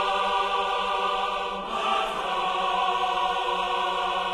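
Music cue of a choir-like voice chord held steadily, with a slight shift about two seconds in.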